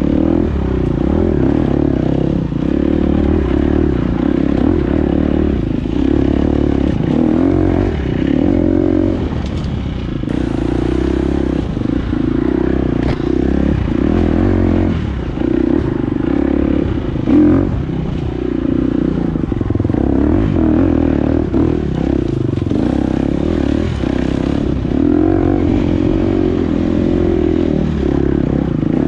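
Enduro dirt bike engine running under constantly changing throttle, its pitch rising and falling over and over as it rides a single-track trail, with scattered knocks and rattles throughout.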